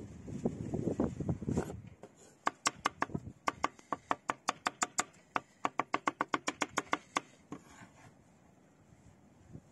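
Knife chopping food on a cutting board: a quick run of crisp strokes, about six a second, starting about two seconds in and lasting around five seconds with a brief pause midway. Before it there are dull, low handling knocks.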